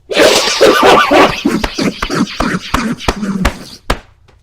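A man coughing hard in a fit of rapid, harsh coughs for about three and a half seconds, after inhaling vape vapour. The coughs break off near the end into a few small clicks.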